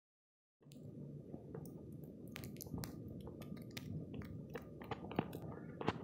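Footsteps crunching through fresh snow, irregular crisp crunches over a low wind rumble on the microphone, starting about half a second in after silence.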